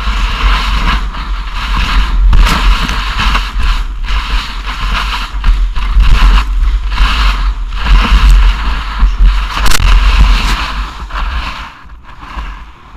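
Loud, uneven rushing of wind and snow over an action camera's microphone while moving fast through deep powder, with heavy low buffeting. It fades near the end.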